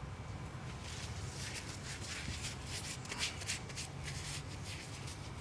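Soft irregular rustling and scratching from hands working at a small packet, over a faint steady low hum.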